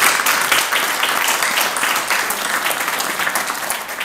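Audience applauding: many people clapping hands at once, a dense, even patter that eases slightly toward the end.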